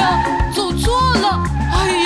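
Children's cartoon song: a character's singing voice over a backing track with a bass line.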